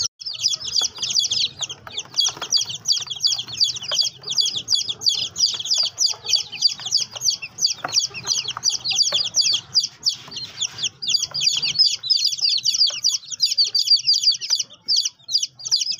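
Baby chick peeping: a continuous stream of short, high, downward-sliding cheeps, several a second, with a couple of brief pauses near the end.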